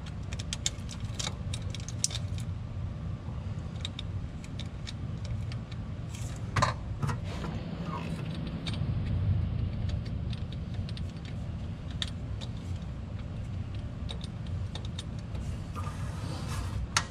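Light metallic clicks and clinks as the crankshaft position sensor and its small mounting bolts are handled and fitted, most of them in the first couple of seconds and a few more later, over a steady low hum.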